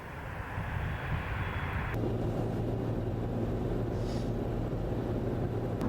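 Steady low hum and rumble of a vehicle running. A higher hiss cuts off about two seconds in, leaving the steady low hum.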